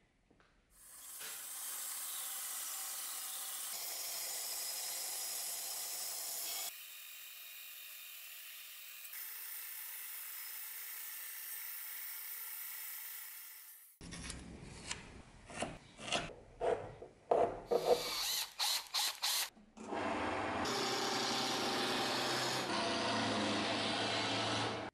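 Workshop woodworking sounds cut together: a band saw running and cutting a walnut handle block, a run of short uneven scraping strokes, then a wood lathe spinning while a hand chisel cuts the handle blank.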